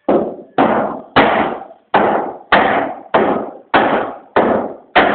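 Hammer blows on a teakwood roof frame: about nine sharp, evenly paced strikes, a little under two a second, each ringing out briefly.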